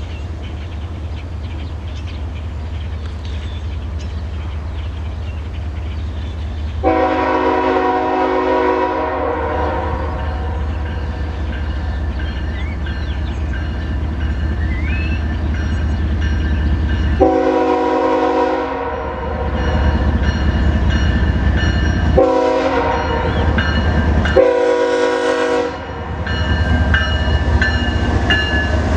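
Air horn of a Norfolk Southern GE diesel locomotive sounding the grade-crossing signal, long, long, short, long, while the train approaches. Under it the locomotives' diesel engines rumble low and grow louder.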